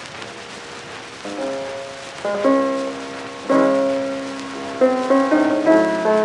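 Background piano music: held chords come in about a second in and grow louder in steps, with quicker notes near the end.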